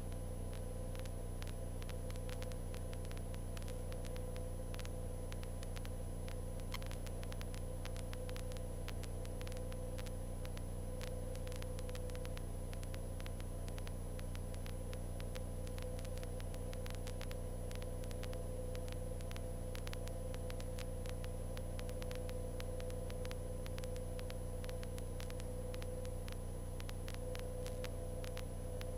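Steady, faint drone of a Cessna 152's four-cylinder Lycoming engine and propeller in cruise flight, unchanging in pitch.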